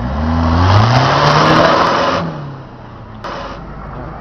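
Off-road 4x4's engine revving hard, rising in pitch, with a loud rush of tyres churning mud as it climbs a steep bank. About two seconds in the revving drops away, leaving a quieter engine running, with a single sharp click a second later.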